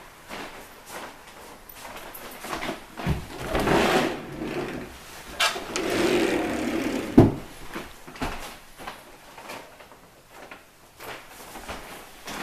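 Wooden built-in closet doors being handled: scattered clicks and knocks with stretches of rubbing around four and six seconds in, and one sharp knock about seven seconds in.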